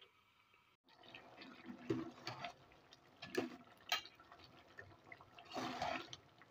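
A metal ladle stirring cooked kidney beans in thick gravy in an aluminium pressure-cooker pot: liquid sloshing and squelching, with a few sharp clinks of the ladle against the pot.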